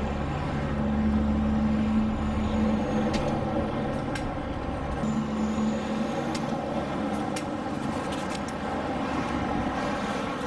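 Street traffic: engine hum from passing vehicles, strongest in the first three seconds and again briefly about five seconds in, over a steady wash of road noise, with a few light clicks.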